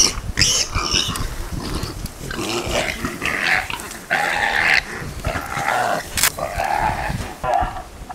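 Animal cries at a leopard's kill of a warthog piglet: a couple of short squeals near the start, then a run of separate squeals and growls from about two and a half seconds until near the end, while the leopard holds the piglet in its jaws and the mother warthog comes up close.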